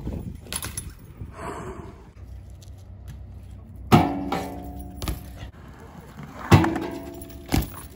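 BMX bike landing on a metal grind rail: two sharp clanks about four and six and a half seconds in, each ringing on briefly, with a lighter knock near the end.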